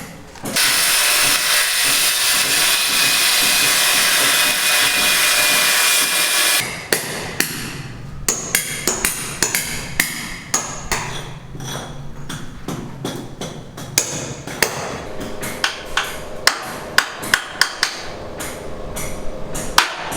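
A loud, even rushing noise for about six seconds, then a run of irregular sharp knocks, a few a second, like hammering.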